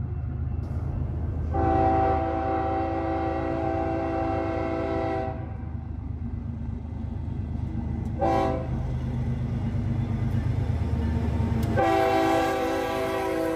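BNSF freight train's diesel locomotives approaching, a steady low rumble under the lead locomotive's air horn: one long blast, a short blast, then another long blast near the end.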